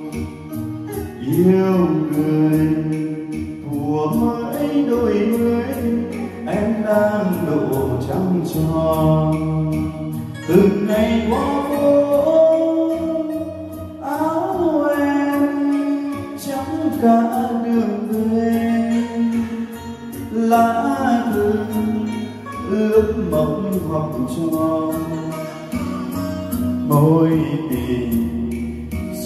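A man singing into a wireless microphone over a backing track, amplified through Yamaha DXR15 powered PA speakers in a sound-system test.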